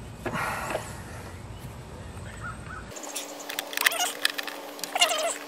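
Clicks and handling noise of a crimping tool and wire being worked at a metal electrical box, loudest twice in the second half, with a few harsh bird calls.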